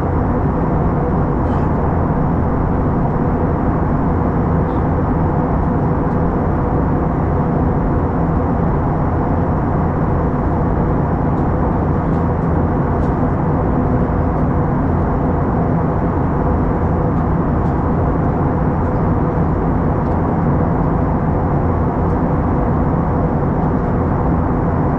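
Steady cabin drone of an Airbus A321-211 in flight: its CFM56 turbofan engines and the airflow over the fuselage, heard inside the cabin at a window seat over the wing. It runs at an even level, with a faint steady hum underneath.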